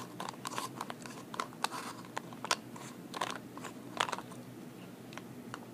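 Pencil being turned in a small handheld pencil sharpener set into a plastic Tic Tac box, the blade shaving the wood with irregular crunching clicks that thin out toward the end. The sharpener is working.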